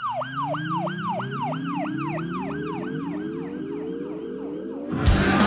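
Electronic siren-like sound effect: a tone sweeping down again and again, about three times a second, over slowly rising lower tones. Near the end a louder, noisy wash takes over.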